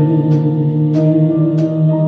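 Worship band music between sung lines: sustained keyboard chords with light percussion ticks keeping a steady beat.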